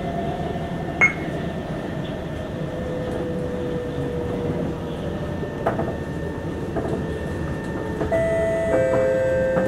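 Singapore MRT train heard from inside the carriage, running with a steady rumble and hum as it nears a station, with a single click about a second in. Near the end, a chime of two notes stepping down sounds over the train noise.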